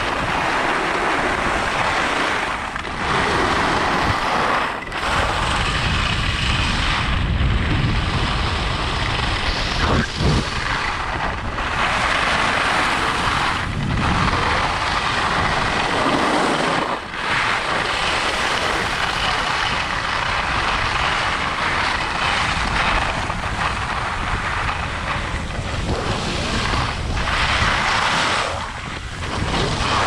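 Edges carving and scraping across packed piste snow through a run of turns: each turn a swell of hiss, with short breaks between, over wind rumble on the microphone.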